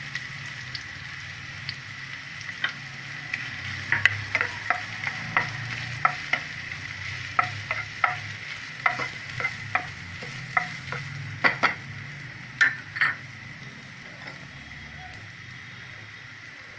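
Grated coconut sizzling in hot oil in a frying pan while a wooden spatula stirs it, scraping and knocking against the pan in a run of short strokes. The stirring stops about three-quarters of the way through, leaving only the sizzle.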